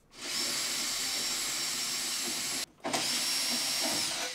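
Cordless drill-driver running in two bursts, the first about two and a half seconds and the second shorter after a brief pause, each with a steady high whine that spins up and winds down: backing out the screws that hold a power strip in a server rack.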